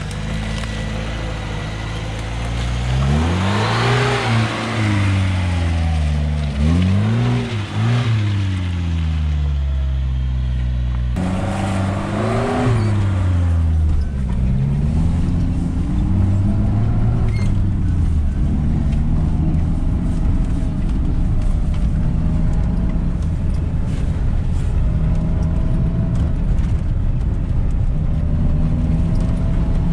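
Lada Niva 4x4's four-cylinder engine pulling the car along a rough track, its revs rising and falling several times in the first half, then running more steadily under load. After about eleven seconds it is heard from inside the cabin.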